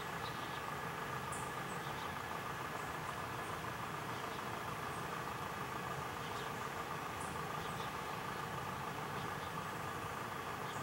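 Steady mechanical hum holding several constant tones, with faint short high chirps scattered through it every second or two.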